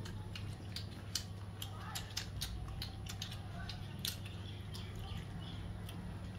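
A person eating rice and curry by hand from a metal plate: irregular wet mouth clicks and lip smacks from chewing, over a steady low hum.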